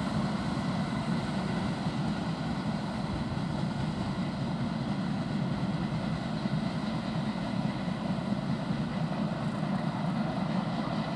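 Steady rumble of a freight train's loaded open wagons rolling along the track, wheel and rail noise with no distinct clacks.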